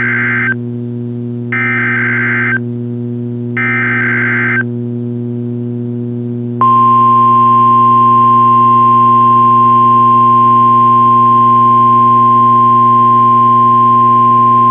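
NOAA Weather Radio SAME header: warbling bursts of digital data tone, each about a second long and two seconds apart. About six and a half seconds in, the 1050 Hz weather radio warning alarm tone starts, one loud steady tone. Under it runs a steady low hum on the receiver. The sequence opens the Required Weekly Test.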